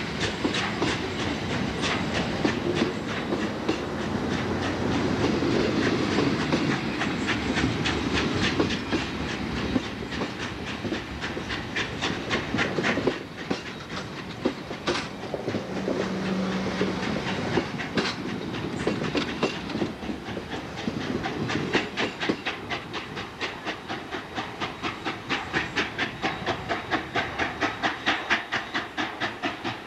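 Steam-hauled train rolling past at close range: the rumble and hiss of CPR 4-6-4 Hudson steam locomotive 2816 just gone by, fading a little under halfway, then its cars rolling past with steady clickety-clack of wheels over the rail joints, about two clicks a second and more distinct near the end.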